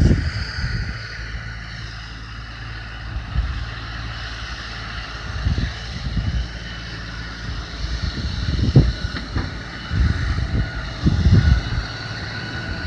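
LS XR4155H tractor's 55 hp diesel engine running steadily, with a steady high whine over it and irregular low thumps.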